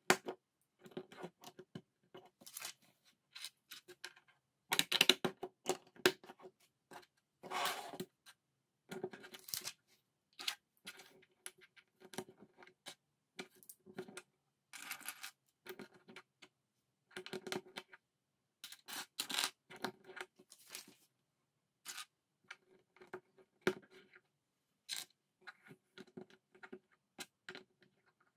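LEGO bricks clicking and clattering as loose pieces are picked up and pressed together, an irregular run of sharp clicks with short pauses between them.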